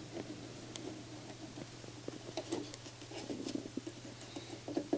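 Faint scattered clicks and light scratching from small tools and electronic components being handled at a repair bench, over a faint steady low hum.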